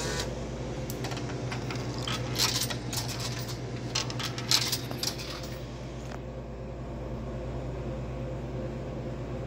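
Coins dropped into the coin slot of a Dixie Narco BevMax DN5800 vending machine, clinking and rattling through its coin mechanism in several sharp clicks from about two to six seconds in, over a steady low hum.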